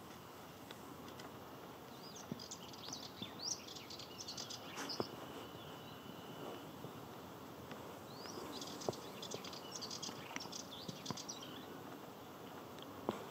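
Male Sardinian warbler singing: two bursts of fast, high chattering song a few seconds apart, the second beginning about halfway through.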